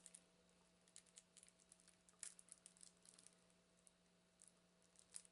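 Faint, scattered small clicks and crinkles of fingernails picking at the wrapping on a deck of cards while trying to get it open, over a faint steady hum.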